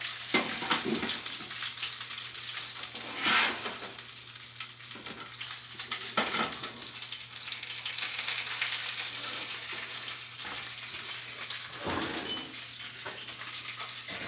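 Skin-on chicken legs searing in a pan with a steady sizzle, broken by a few short clatters, the loudest about three seconds in.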